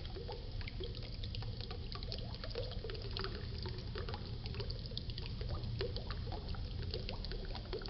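Water falling and splashing from a small waterfall: a steady low rumble under many quick, irregular splashes and gurgles.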